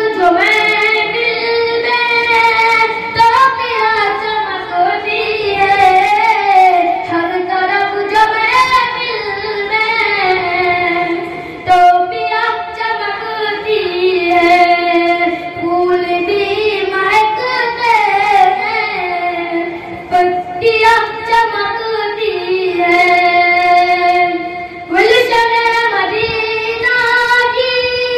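A boy singing an Urdu nazam solo without instruments, in long drawn-out phrases of held and sliding, ornamented notes, with short breaks between phrases.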